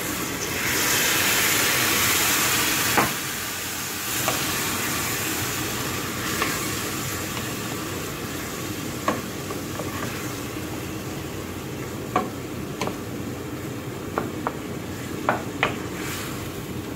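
Water poured into a hot pan of browned ground beef hisses loudly for a couple of seconds, then the liquid simmers while a wooden spatula stirs the beef, knocking and scraping against the pan about a dozen times.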